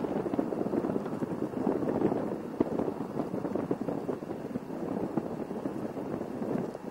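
Wind buffeting the microphone: a steady rushing noise with many small crackles.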